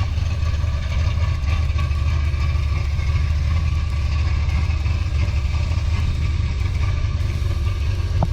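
Holden VN Calais engine idling steadily while it is being tuned, its injector loads being set before a dyno tune.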